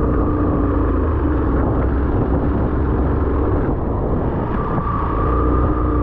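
A vehicle running on the road: a steady low rumble of engine, tyres and wind, with an engine note that is clearest at the start and again near the end.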